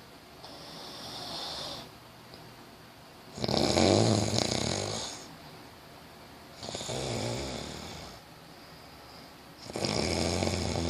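Snoring in sleep: a softer breath near the start, then three loud snores about three seconds apart, each lasting a second or two.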